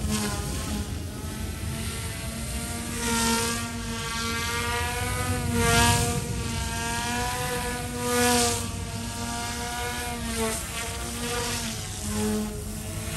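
Eachine E120S micro collective-pitch RC helicopter in 3D flight: the whine of its direct-drive brushless motor and rotors, the pitch wavering up and down. Rushing blade noise swells louder about four times as the rotor is loaded in hard manoeuvres.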